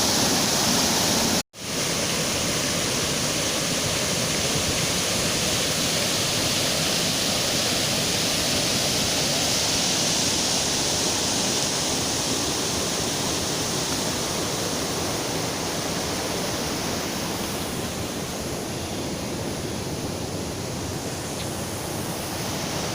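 Rapids of a small river waterfall rushing in a steady roar of water, cut off for a split second about a second and a half in.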